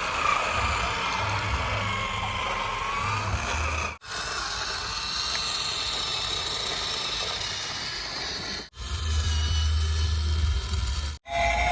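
Small electric motors and gearing of RC toy vehicles whining and humming steadily, in four short stretches split by abrupt cuts.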